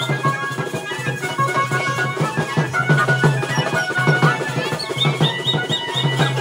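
Lively band music for dancing: fast, dense drumming on a stick-played drum, with a repeating melody above and a steady low note beneath.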